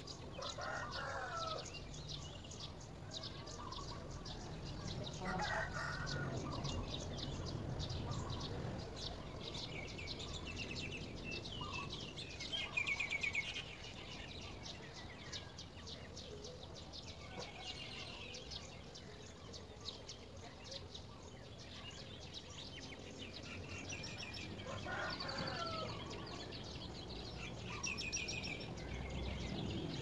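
Birds calling outdoors: many short high chirps throughout, with a longer, lower call about a second in, again at about five seconds and near twenty-five seconds.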